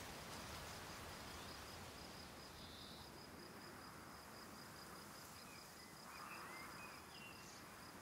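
Faint meadow ambience: an insect chirping in a high, even, rapid pulse that runs steadily, with a few faint bird chirps in the second half.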